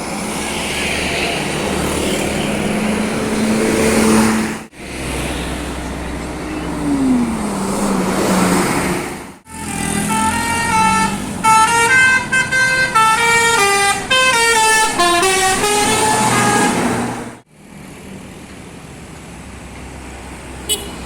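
Buses' engines and road noise, then a bus's multi-tone 'telolet' air horn playing a quick melody of notes stepping up and down for about seven seconds, the loudest sound here. The sound breaks off abruptly three times.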